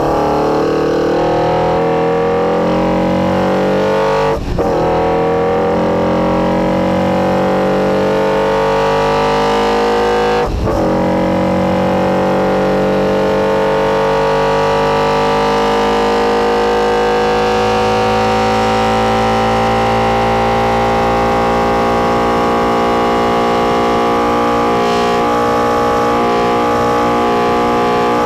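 NSU TT's air-cooled four-cylinder engine with Weber carburettors at full throttle, its hammering intake noise loud. The revs climb, drop briefly at upshifts about four and a half and ten and a half seconds in, then rise slowly through a long pull in a higher gear.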